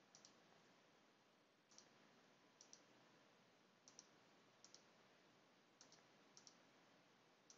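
Faint computer mouse clicks, each a quick double tick of press and release, coming about once a second.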